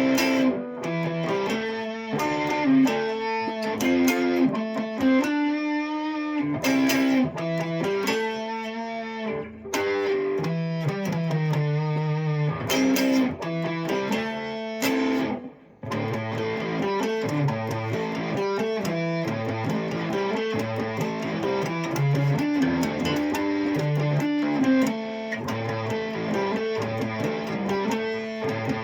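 Guitar music, a continuous run of plucked notes with a brief break about fifteen seconds in.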